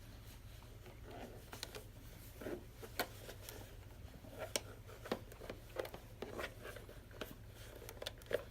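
Hands handling an old camera: scattered small clicks and taps with soft rustling, over a faint steady low hum.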